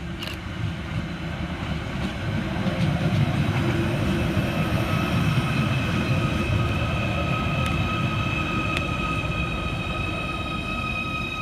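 Merseyrail Class 777 electric train moving at the platform: wheel and running-gear rumble that builds to its loudest a few seconds in and then slowly fades, with a steady high electric whine joining about halfway.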